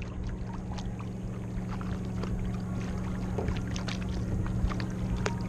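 Kayak paddling on water: irregular splashes and drips from the paddle, over a steady low hum.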